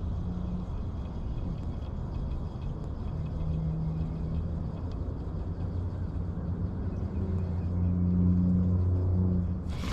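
An engine running with a steady low hum, growing louder about eight seconds in and easing off just before the end.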